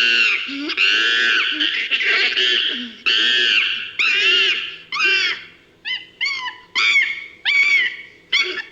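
Designed creature sound effect built from layered chimpanzee calls: loud, high cries that arch up and down in pitch. They are long and run together for the first four seconds or so, then break into shorter separate cries about one a second.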